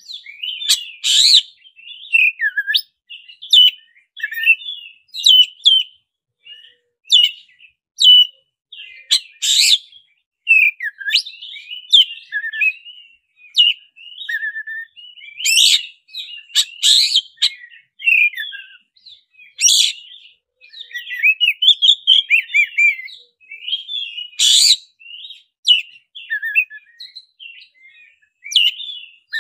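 Black-breasted oriental magpie-robin singing a long, fast, rolling run of varied whistled phrases, broken every few seconds by loud, sharp piercing notes.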